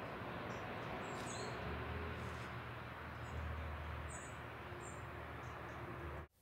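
Lakeside outdoor ambience: a steady background hiss over a low rumble, with several brief high bird chirps scattered through. It cuts off abruptly just before the end.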